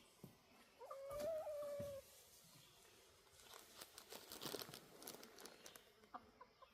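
A hen gives one drawn-out, steady-pitched call lasting about a second, followed by faint rustling and crackling.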